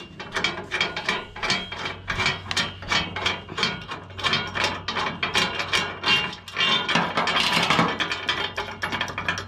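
Metal parts of an ATV/lawnmower floor jack clinking and knocking as they are handled and fitted during reassembly. It is a run of irregular clicks and clanks, several a second, that gets busier near the end.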